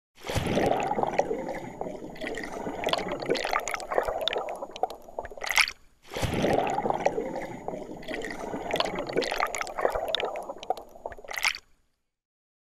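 Intro sound effect of water gurgling and splashing, played twice in identical copies of about six seconds each. Each copy ends in a short, louder rush.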